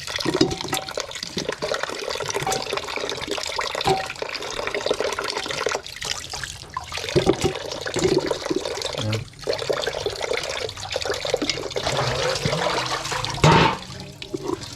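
Water running from a tap and splashing, with short clatters of things handled under the stream and one louder knock near the end.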